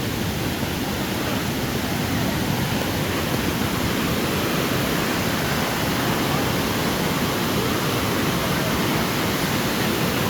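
Mingo Falls, a large waterfall, rushing steadily: an even, unbroken hiss of falling water.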